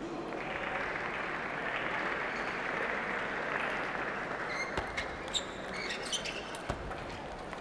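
Spectators applauding, dying away after about four seconds. Then a table tennis rally begins: the ball clicks sharply off the bats and the table, several times about a third of a second apart.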